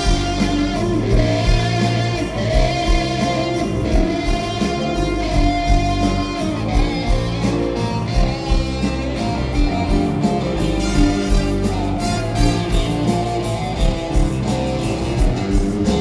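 Live blues band playing with a steady beat: drums, electric guitar and keyboards under a horn section of saxophone, trumpet and trombone.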